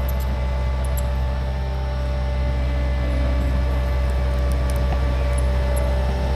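Skid steer's diesel engine running steadily: a low drone with a faint, higher steady tone over it.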